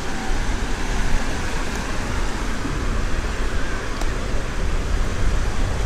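Steady beach ambience: wind rumbling on the microphone over the wash of the sea.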